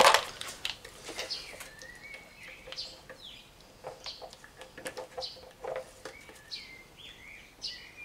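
Scattered plastic clicks and knocks of a pressure washer attachment being pushed and worked onto the wand, the loudest right at the start. Birds chirp in short calls between them.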